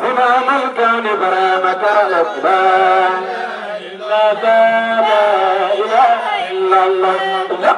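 Men chanting a Sufi dhikr song through microphones, a lead voice drawing out long, wavering held notes over a steady low sustained tone.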